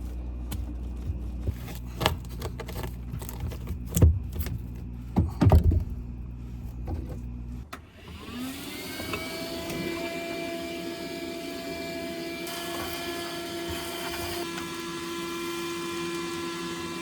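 Knocks and bangs of demolition work in a boat's hull over a low hum, then, about eight seconds in, an electric power tool spins up and runs at a steady high pitch.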